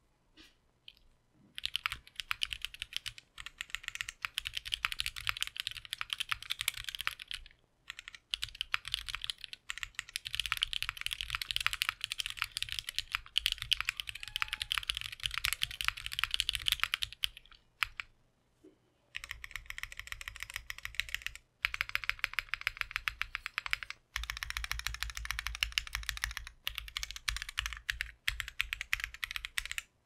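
Fast, continuous typing on a Sierra S prototype 60% custom mechanical keyboard with lubed, broken-in MMD Cream switches, GMK Lux keycaps, a half FR4 plate on a 30A O-ring mount, and lubed screw-in stabilizers. The keystrokes come in dense runs broken by a few short pauses, the longest near the middle.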